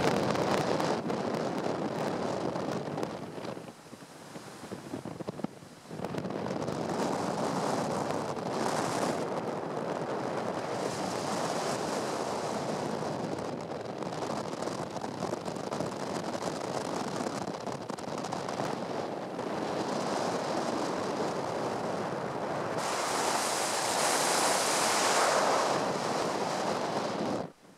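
Wind buffeting the microphone over the rush of the sea along the hull of a sailing ship under way. There is a quieter lull about four seconds in and a stronger, hissier gust late on.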